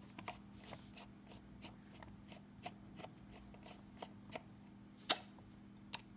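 Irregular light clicks and taps of a laptop hard disk and its holder being handled and worked loose, with one sharper click about five seconds in.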